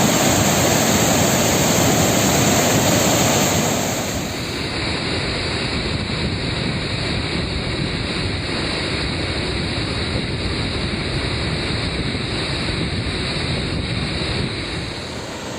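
Water pouring through the opened spillway shutters of Peechi Dam in a steady, loud rush; the level drops a little about four seconds in.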